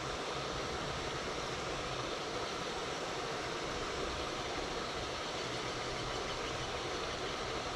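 Steady rushing of flowing water, an even hiss and rumble that does not change.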